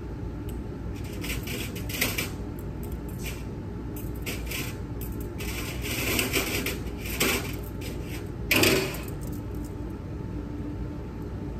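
Stainless steel surgical instruments, Allis clamps, clinking and rattling against each other as they are handled and counted, in irregular clicks with a louder metal clatter about eight and a half seconds in.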